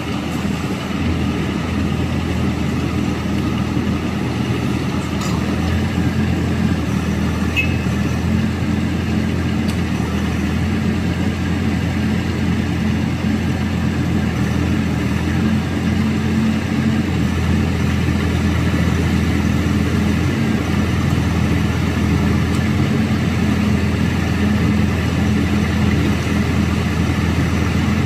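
A 2.5-ton mini excavator's small diesel engine running steadily while its boom, arm and bucket are worked hydraulically, with a few faint clicks in the first ten seconds.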